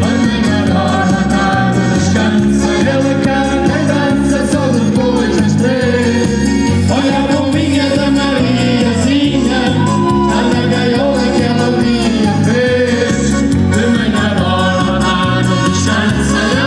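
A popular dance band playing live with a vocalist singing over a steady bass beat of about two pulses a second.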